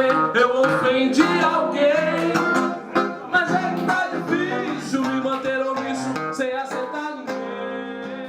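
Music with plucked and strummed acoustic guitar, growing quieter near the end.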